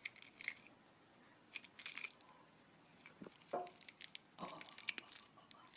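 A cat biting and chewing a paper-wrapped sugar candy held in a hand. The wrapper makes irregular crisp crackling and crunching in four short bursts.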